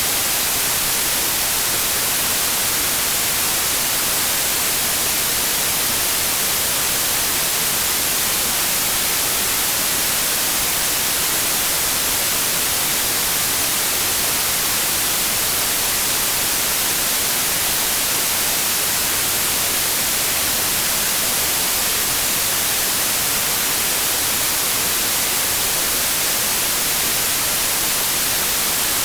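Steady white noise: an even, unbroken hiss that is strongest in the high frequencies and never changes in level.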